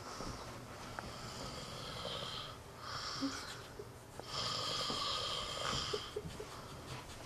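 A man snoring, several long, wheezy, whistling breaths in a row, the longest and loudest from about four to six seconds in.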